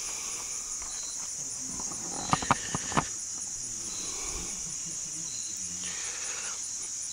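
Insects trilling in a steady, high, continuous chorus. Four sharp clicks in quick succession about two and a half seconds in.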